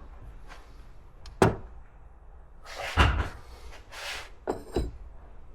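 Clunks and knocks of metal parts and tools being handled and set down: a sharp knock about one and a half seconds in, a heavier thump around three seconds, and two more knocks near the end.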